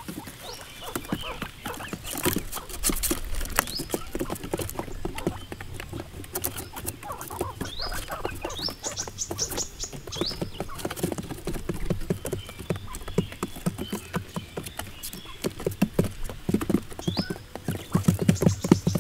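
Quail pecking at grain and scratching on cardboard and dirt, a fast, irregular patter of small taps that grows denser and louder near the end, with short rising peeps every few seconds.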